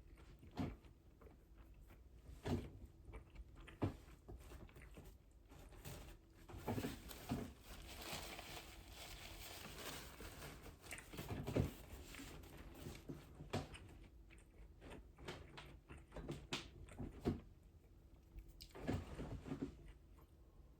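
A person eating quietly: irregular chewing and biting sounds with scattered soft clicks and crackles, a few of them louder than the rest.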